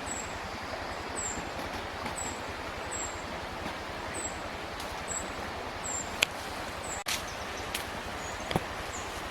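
Steady outdoor background noise, a hiss like running water or wind, with a short high falling chirp repeating about once a second throughout. A few sharp clicks or knocks come in the second half.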